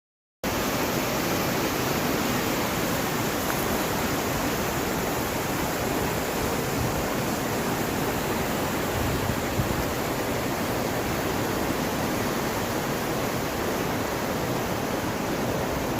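Steady rushing noise, even and unbroken, starting abruptly about half a second in.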